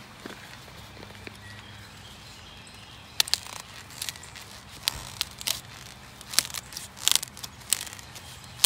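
Scissors snipping and crunching through the joint of a prickly pear cactus paddle: a run of sharp cuts, some in quick pairs, starting about three seconds in, the loudest at the very end.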